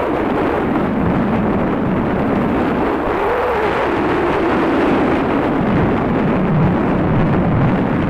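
Wind buffeting the phone's microphone: a loud, steady rumble with no break.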